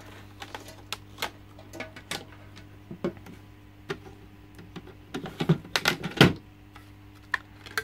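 Plastic parts of a SunSun HW-504B canister filter clicking and knocking as they are handled and the media trays are worked loose in the canister. Scattered light clicks give way to a cluster of louder knocks about five to six and a half seconds in, the loudest just after six seconds.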